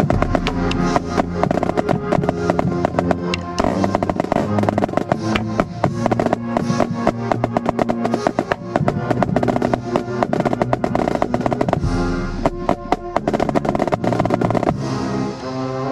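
Marching snare drums playing sharp strokes and fast rolls close at hand, over a marching band's wind instruments holding sustained chords.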